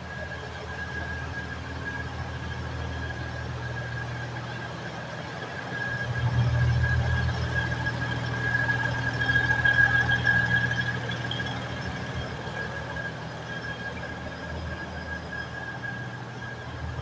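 Batara Kresna railbus moving slowly out along the platform: a low diesel engine rumble with a steady high-pitched squeal over it, both growing louder about six seconds in and easing again after about eleven seconds.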